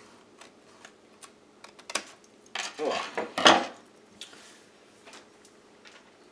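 Trimming the pages of a paper glue book: a run of small snips, clicks and paper rustles, with a louder burst of rustling around three seconds in.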